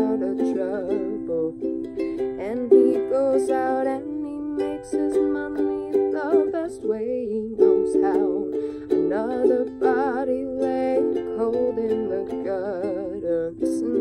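Ukulele strummed in chords, with a woman singing over it.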